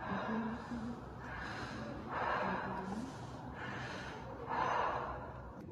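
Werecat sound effect: heavy, rasping breaths, about one a second, some with a faint low growl.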